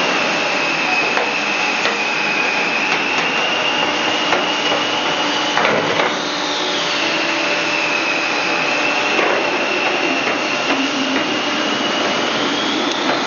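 Machinery running steadily with a high whine that drops in pitch and holds, breaks off about six seconds in, then drops and holds again before rising near the end.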